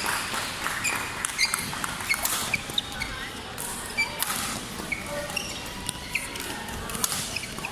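Badminton rally: several sharp racket strikes on the shuttlecock, with many short high squeaks of court shoes on the floor between them.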